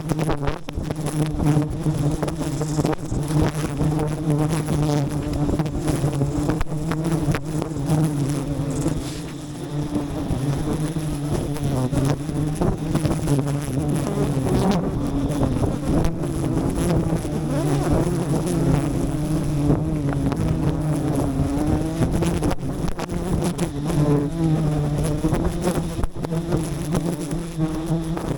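Swarm of wild honeybees buzzing close by: a loud, continuous drone that wavers slightly in pitch.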